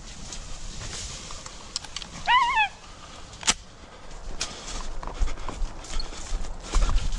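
A hunting dog gives a short burst of high yelps, about four quick notes, a couple of seconds in. Around it are footsteps and rustling through grass and dry cane, with a sharp crack about a second after the yelps.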